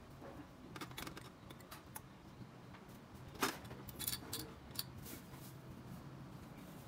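Small metal carburetor parts (brass jets, screws and springs) clicking and clinking as they are handled and picked from a stainless-steel parts bowl. There is a sharper click about halfway, then a few quick clinks, over a faint steady hum.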